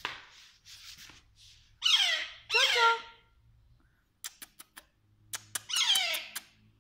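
Young parakeet squawking: two loud, harsh calls falling in pitch about two and three seconds in, and a third near the end, with a few sharp clicks in between.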